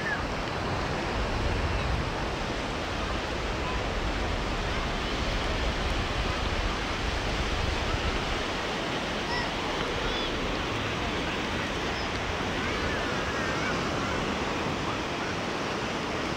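Sea surf washing onto a beach: a steady rush of breaking waves.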